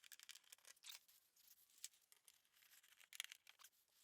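Near silence, with faint scattered clicks and short rustles of small handling noise.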